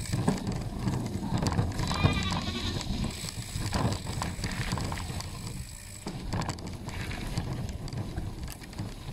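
Bicycle riding over a wet, muddy dirt path: a steady low rumble with scattered rattles from the tyres and frame. A short, wavering high-pitched cry about two seconds in is the loudest moment.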